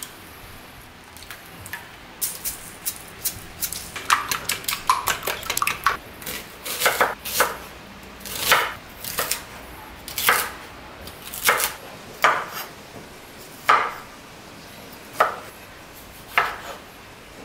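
Chef's knife cutting onion and cherry tomatoes on a bamboo cutting board: a quick run of knocks in the first few seconds, then single slicing strokes about once a second, each ending in a knock of the blade on the board.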